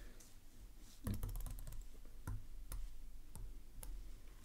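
Stylus tapping and clicking on a tablet screen while drawing short dashes and marks, a few irregular sharp clicks starting about a second in, over a faint low hum.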